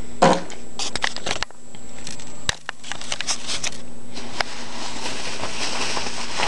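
Bubble wrap and plastic wrapping crinkling and crackling as they are handled in a cardboard box, with a knock just after the start and a sharp click about two and a half seconds in.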